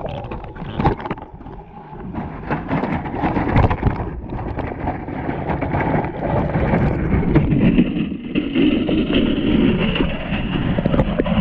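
Muffled water noise and knocks picked up by a GoPro in its waterproof housing inside a wire-mesh fish trap as the trap is hauled up and out of the water. Several sharp knocks stand out over the steady rush.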